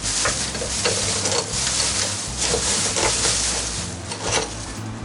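A steady hissing rustle with scattered light clicks and clatters, the sound of objects being handled.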